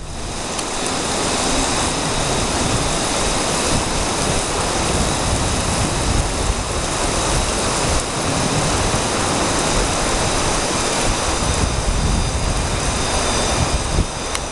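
Steady rushing of a fast river, with an uneven low rumble underneath.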